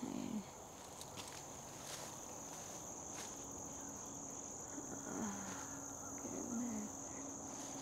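Insects, crickets by the tags, trilling steadily at one high pitch, with a few soft clicks.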